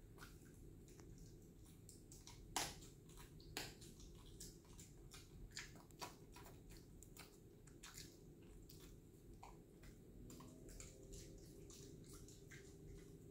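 A dog eating: faint, irregular wet clicks and smacks of its mouth on the food, with a sharper click about two and a half seconds in and another a second later.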